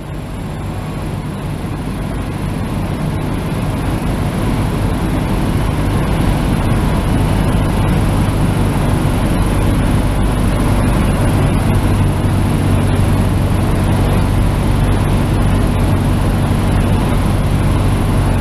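Cessna 172's piston engine and propeller droning steadily as heard inside the cabin, with rushing airflow noise. It grows louder over the first few seconds, then holds steady.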